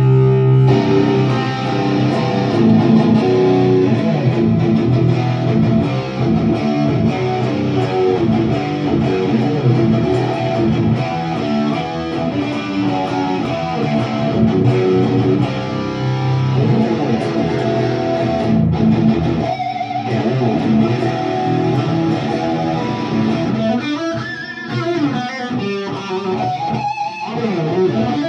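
PRS SE Custom 24 electric guitar with a roasted maple neck, played through a Marshall amp: ringing strummed chords for most of the time, then single-note lead lines with bent notes near the end.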